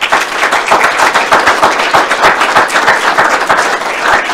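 Audience applause: many people clapping at once, loud and steady.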